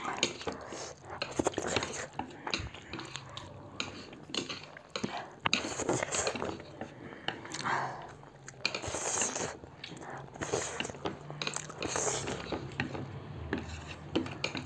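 Two people eating noodles with chopsticks: chopsticks clicking against plates, with chewing and slurping.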